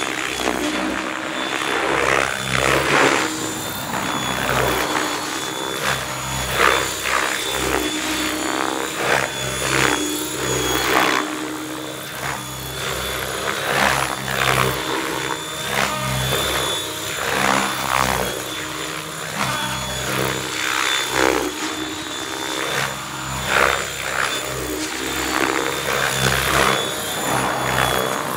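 Electric Mikado Logo 600 RC helicopter, driven by a Pyro 650 brushless motor, flying aerobatics. A steady high whine runs under the rotor blade noise, which swells in a whoosh every second or few as the blades load up in the manoeuvres.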